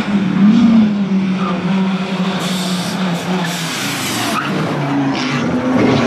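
Audi Quattro rally car's turbocharged five-cylinder engine held at high revs while its tyres spin and screech, the screech lasting about two seconds from a little over two seconds in.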